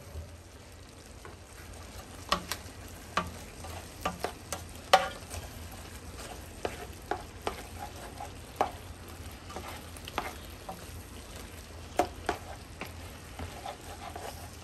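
Meat, onions, celery, bell pepper and garlic sizzling in oil in a pot while being stirred, with a spoon scraping and knocking against the pot at irregular moments.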